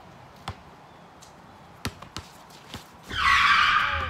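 A few sharp knocks from a basketball in play on a driveway hoop, then a loud scraping skid lasting about a second near the end.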